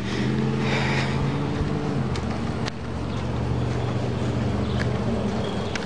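An engine running at a steady pitch, with its upper tones dropping away about two seconds in.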